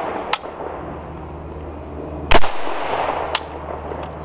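A single shot from an AR-15 rifle about two seconds in, followed by a long fading echo. A fainter sharp click comes near the start and another about a second after the shot.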